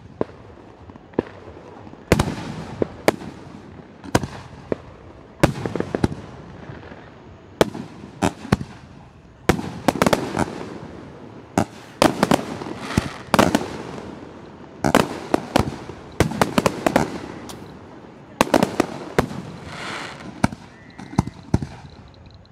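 Aerial fireworks shells bursting overhead: a fast, irregular series of loud, sharp bangs, each trailing off in an echo, with several going off close together in the middle.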